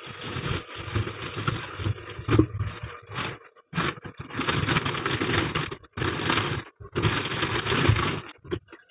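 Fruit being washed at a kitchen sink: irregular bursts of splashing and handling noise, broken by several short pauses.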